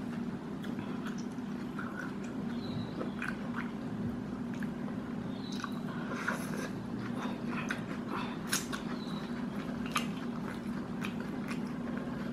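A person chewing a mouthful of chicken burger with lettuce: scattered wet mouth clicks and smacks, a couple of them louder towards the end. A steady low hum runs underneath.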